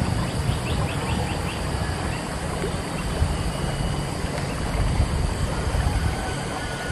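Water sloshing and dripping as a cast net is gathered in and drawn up out of shallow water, over a steady low rumble of wind on the microphone.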